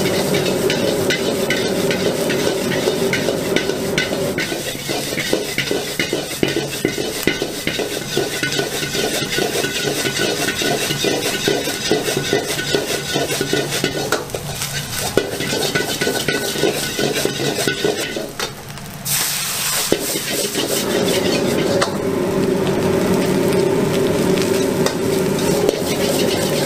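Metal wok ladle scraping and clattering against a carbon-steel wok as fried rice is tossed and stir-fried, with steady sizzling of the rice in hot oil. A brief louder hiss comes about two-thirds of the way through.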